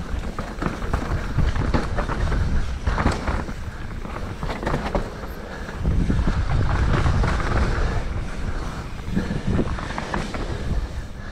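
Mountain bike riding down a rough trail: chain, frame and tyres rattling, with repeated sharp knocks over bumps. Wind is buffeting the microphone.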